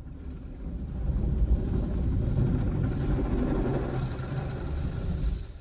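Automatic car wash machine working over the car, heard from inside: a steady rumbling rush of water and machinery on the bodywork, building up about a second in and stopping abruptly near the end.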